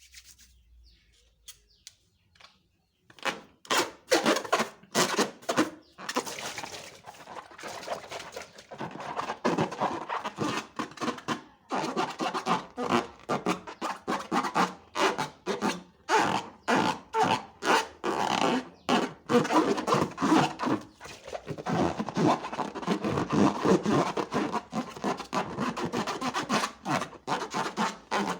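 Hands working slime: an irregular run of short sticky squishes, crackles and pops that begins about three seconds in.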